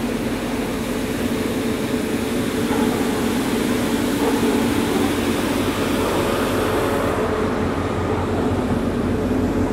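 City square street noise with a steady mechanical hum from traffic or machinery.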